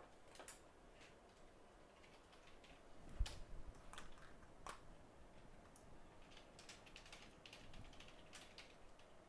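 Faint, scattered light clicks and taps, with one louder knock about three seconds in.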